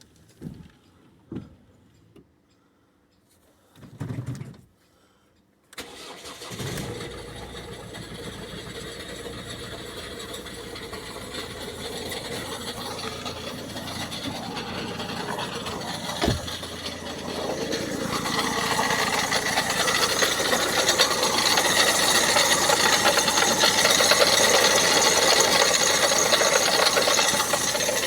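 A few clicks and a knock, then about six seconds in the 2009 Ford Focus Mk2's 1.6 TDCi four-cylinder diesel starts and idles, growing louder in the second half with a single sharp click partway through. The owner hears a rattle in it that he suspects may come from an engine mount.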